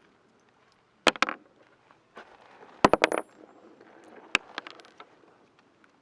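Gunshots: two about a second in, a quick string of three around the middle, and another single shot, with fainter shots in between, each a sharp crack with a short echo.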